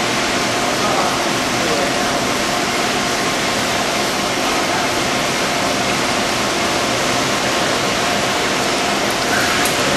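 VMC220L CNC vertical machining center cutting a bore in a cast housing under flood coolant: a steady rush of coolant splashing over the spindle and workpiece, with a faint, even machine hum beneath it.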